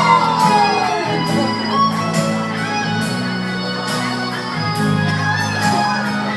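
Music with guitar over a moving bass line.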